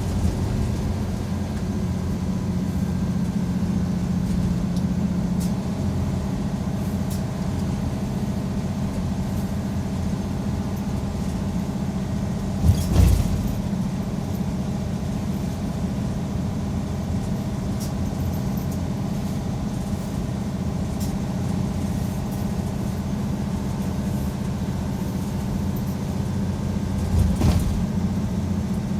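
Mitsubishi Fuso Aero Midi MK bus running, heard from inside the cabin: a steady engine hum with road noise. A short thump sounds about halfway through and another near the end.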